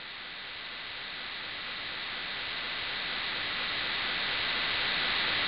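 Steady hiss of recording noise, slowly growing louder, with a faint steady high tone running through it.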